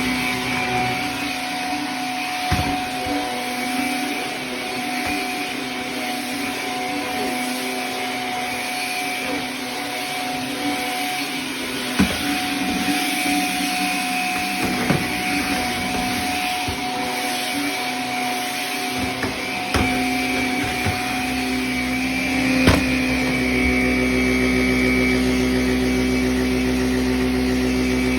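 Vacuum cleaner running steadily over a carpet, with a few sharp knocks as it is pushed about. Near the end its motor tone shifts and fills out lower.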